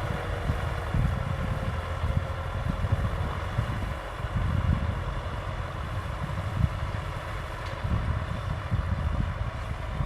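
Kubota M6040 SU tractor's diesel engine running steadily under load, with wind buffeting the microphone.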